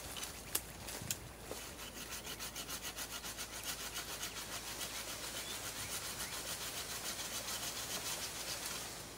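Sawing through a live yaupon branch: quick, even back-and-forth strokes start about a second and a half in and stop near the end, after a couple of sharp clicks at the start.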